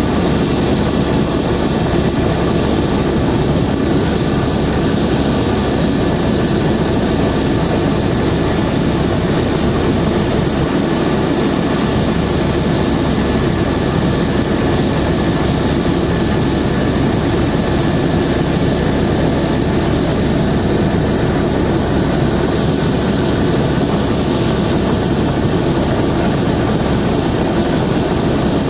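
Helicopter in flight: loud, steady engine and rotor noise that holds unchanged throughout.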